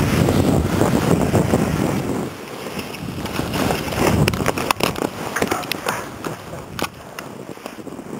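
Wind noise on the microphone of a skier's camera while skiing downhill. About four seconds in the camera goes down into clumpy snow with a sudden scrape, followed by a run of sharp clicks and knocks of snow and equipment against it.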